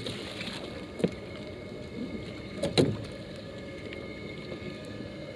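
A tow line slapping and splashing into the water, then two knocks against the kayak, about one and three seconds in, the second louder. Under it runs a steady engine hum from the boat alongside.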